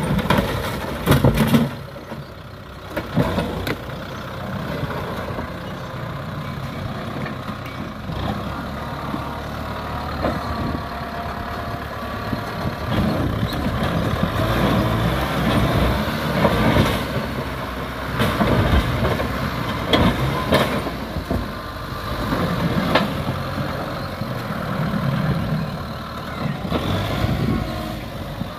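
Kubota M6040 tractor's diesel engine running while its front blade pushes over concrete walls, with repeated cracks and knocks of breaking concrete and falling rubble, a loud cluster about a second in and more through the second half.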